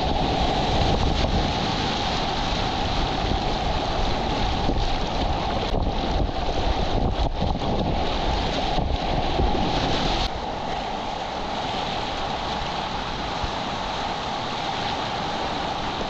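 Rushing whitewater with wind buffeting the microphone; the low rumble eases about ten seconds in.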